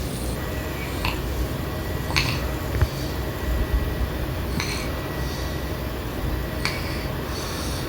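A sleeping 8-month-old baby's snoring: short snuffly breaths about every two seconds over a steady low rumble.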